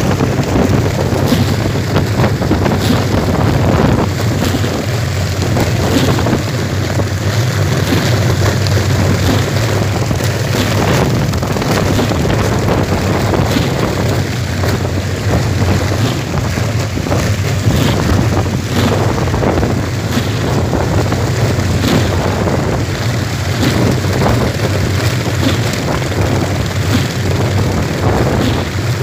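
Kolecer, Sundanese wooden wind propellers on tall bamboo poles, spinning in the wind with a steady low drone, mixed with wind buffeting the microphone.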